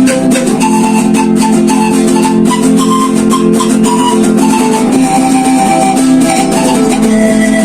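Live acoustic guitar music: chords strummed in a steady rhythm under a sustained melody line that steps up and down.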